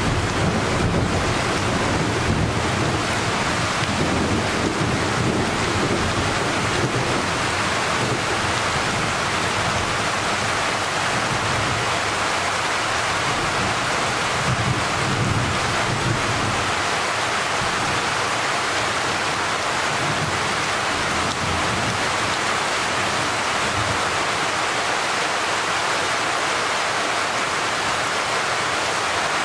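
Steady rain falling in a thunderstorm, a constant hiss with no pauses. A low rumble sits under it in the first half and dies away about halfway through.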